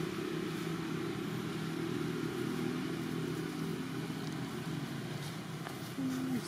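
Steady hum of a running engine, level throughout, with a short tone that drops at its end near the close.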